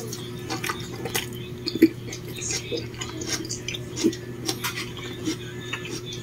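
Scattered light clicks and clinks of kitchen utensils and dishes being handled, irregular and unevenly spaced, with the sharpest knock about two seconds in. A steady low hum runs underneath.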